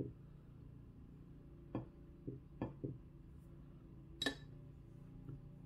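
A paintbrush working a watercolour palette: a few soft taps and clicks, and one sharper clink about four seconds in.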